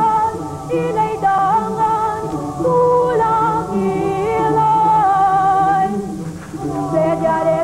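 Choral singing with a woman's voice carrying the melody, in long held notes with vibrato and several voices moving in harmony.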